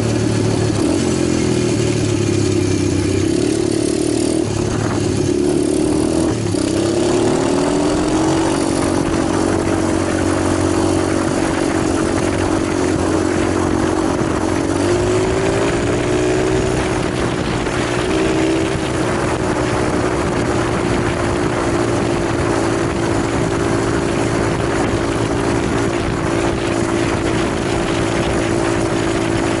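Italjet 125cc pit bike engine running continuously, its note rising in short steps a few times and then holding steady.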